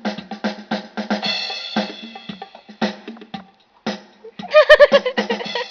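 Electronic keyboard playing a built-in drum-kit rhythm, quick even beats of kick, snare and rimshot, with a held synth tone about a second in and a loud wobbling pitched sound near the end.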